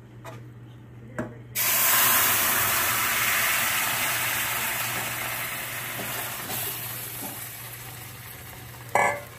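Chopped celery and onions poured into a hot pan of browned flour roux, sizzling loudly in a burst of steam. It starts suddenly about a second and a half in, then fades slowly as it is stirred.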